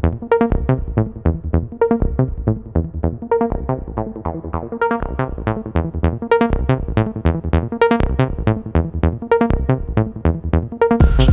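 Background electronic music: a synthesizer melody in quick, even, plucked notes, with drums and bass coming back in near the end.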